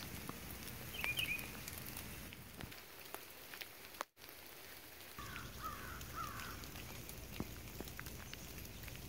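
Wet forest after rain: scattered light ticks of water dripping from the trees, with a short bird call about a second in and a few more short, falling bird calls near the middle. The sound drops out for a moment a little before halfway.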